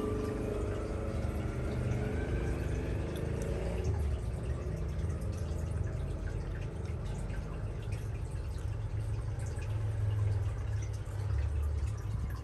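Water trickling and dripping with scattered small splashes, over a steady low hum.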